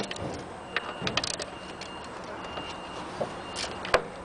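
Ratchet wrench tightening the 9/16 housing bolts of a pool pump, in short scattered clicks with faint metallic ringing and a sharp click near the end.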